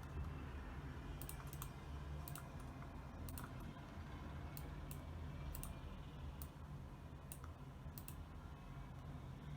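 Computer keyboard keys clicking in slow, irregular keystrokes, about a dozen in all, with pauses between them, over a steady low hum.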